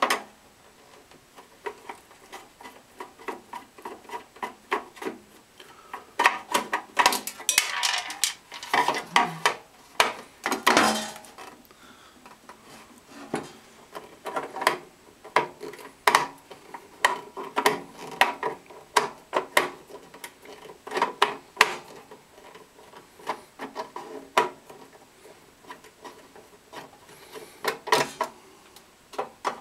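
Metal hand tool scraping and prying around the edge of a FASCO blower motor's sheet-metal cover plate to work it loose. The scrapes and clicks come irregularly, in clusters with short pauses between them.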